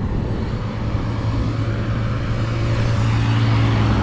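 A motor vehicle running close by, a steady engine hum with tyre noise that grows louder toward the end as it passes.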